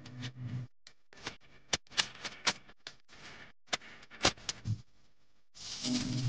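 A string of sharp clicks and ticks at irregular intervals, with a short low hum near the start and again near the end.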